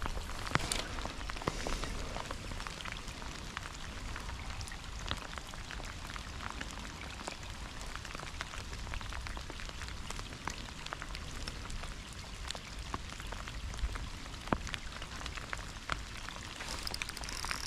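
Steady rain falling: an even hiss with many sharp raindrop ticks landing irregularly.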